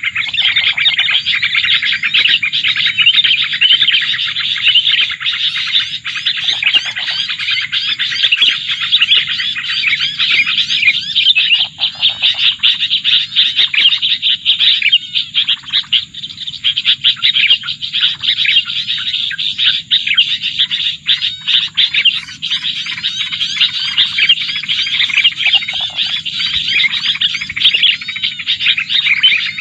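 Dense, fast chirping and trilling of small songbirds, loud and unbroken, with a faint low hum underneath.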